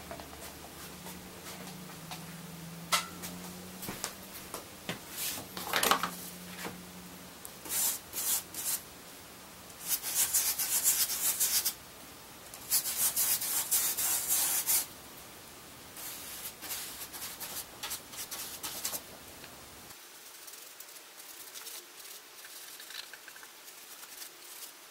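Paintbrush rubbing and dabbing wet laminating resin into sanded fibreglass, with two harsh scrubbing spells of about two seconds each midway. Lighter brush strokes and small clicks come before and after.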